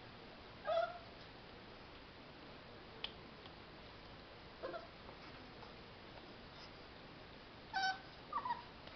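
English bulldog puppy whimpering: four short high whines, the loudest about a second in and two close together near the end, the last one falling in pitch.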